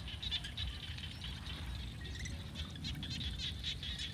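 Outdoor ambience of small birds chirping rapidly and repeatedly, with a steady low rumble underneath.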